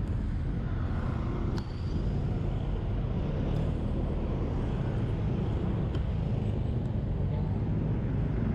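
Steady road traffic noise: a low rumble of passing car and truck engines and tyres.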